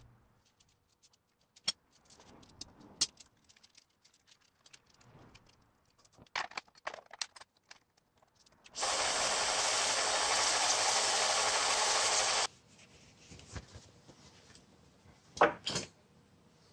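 Clicks and knocks of a piece being handled, then a power sander grinding a resin knife handle for about four seconds, a loud steady hiss that starts and stops abruptly. A few sharp knocks follow.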